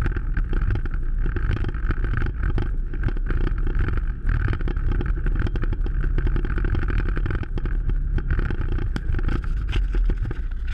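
Off-road vehicle's engine running steadily as it drives up a shallow, rocky creek bed, with water and stones splashing and frequent knocks and clatter from the rough ride.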